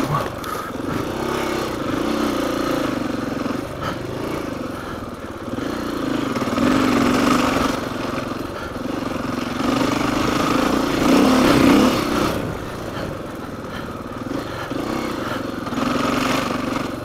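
Dirt bike engine running while the bike is ridden along a dirt trail. Its pitch rises and falls again and again as the throttle is opened and closed.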